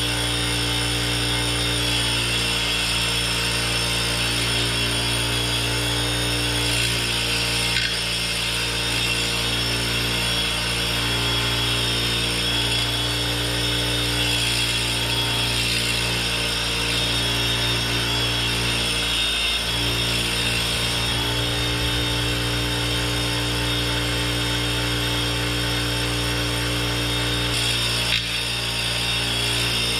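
Bench grinder running steadily with a motor hum while a stump grinder's 1100-series Green Tooth is held against the spinning wheel, giving a continuous grinding sound as the tooth is sharpened.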